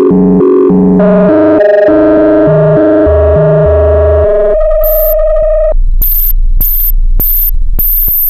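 Electronic music from Korg Volca synthesizers. A repeating arpeggiated note pattern over bass gives way about a second in to a long held note over stepping bass notes. About halfway through, the notes drop out into choppy, stuttering bursts of hiss and noise.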